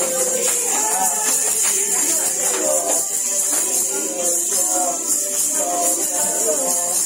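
Upbeat music with a steady beat, a moving melody and bright jingling percussion.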